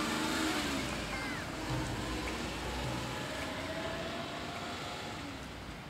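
Steady outdoor street noise with vehicles going by, slowly fading toward the end.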